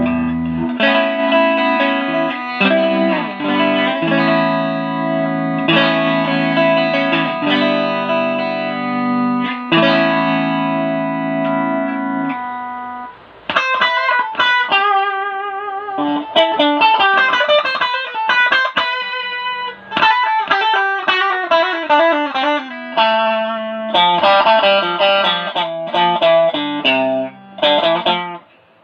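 Pink Stratocaster-style electric guitar played through effects: long held notes and chords for about the first twelve seconds, then, after a brief break, quicker single-note lines with vibrato, pausing briefly again near the end.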